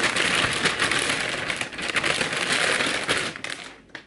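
Packaging crinkling and rustling as it is handled: a dense crackle that fades out near the end.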